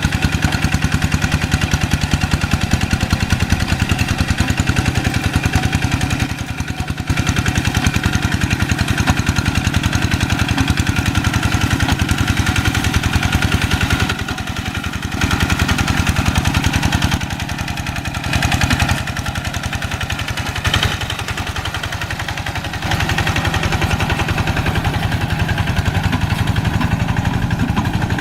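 Diesel engine of a Quick G1000 two-wheel hand tractor running steadily with a fast, even pulse, easing off and picking up again several times as it works through deep paddy mud.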